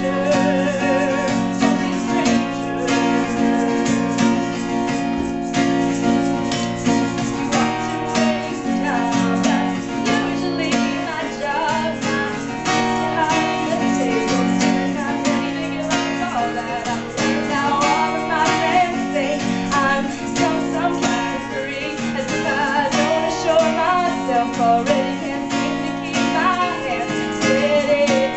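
A woman singing with a strummed acoustic guitar, live and unaccompanied by other instruments.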